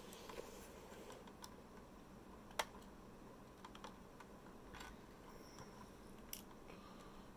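Faint clicks and taps of a toothpick and fingertips working at the engine cover of a Hot Wheels Elite Ferrari 458 GT2 model car. One sharper click comes about two and a half seconds in and a smaller one about six seconds in.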